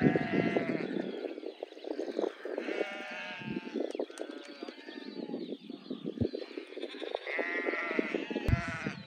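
A large flock of sheep bleating, many calls overlapping, with the loudest bleats at the very start and again near the end.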